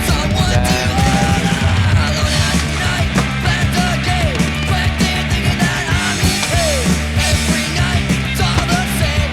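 Loud punk rock music, playing without a break.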